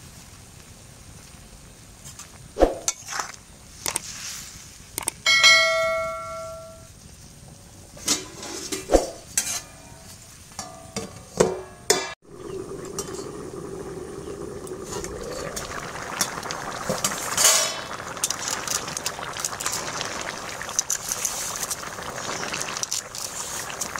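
Steel ladle and steel plate lid clattering against an aluminium kadai: several sharp clanks, one of which leaves a ringing metallic tone that fades over about a second and a half. About halfway through this gives way to a steady bubbling hiss of the yellow pea curry simmering, with the light knock and scrape of a spoon stirring it.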